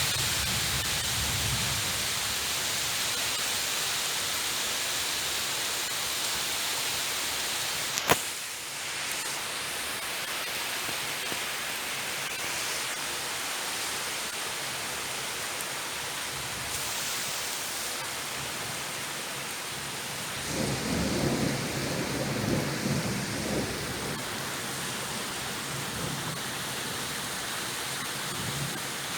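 Steady rain hissing during a thunderstorm, with a single sharp crack about eight seconds in and a low rumble of thunder swelling and fading a little after twenty seconds.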